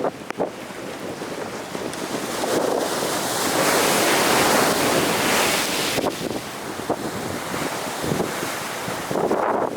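Big ocean surf breaking on the shore: the rushing hiss of the wave swells over a few seconds and then eases, with wind buffeting the microphone.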